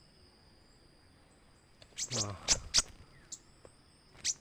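Steady high-pitched insect drone, with a brief vocal sound and a few sharp high chirps about two seconds in and again near the end.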